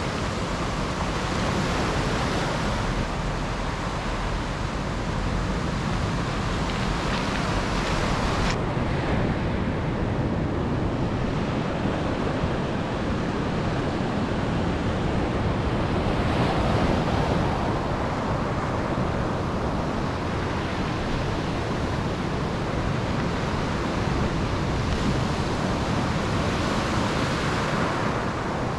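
Sea waves breaking and washing up over a shore of rounded pebbles, the surf hiss swelling and easing with each wave and the pebbles rattling as the water runs over them. Wind rumbles on the microphone underneath. About eight seconds in the sound changes abruptly and the hiss turns duller.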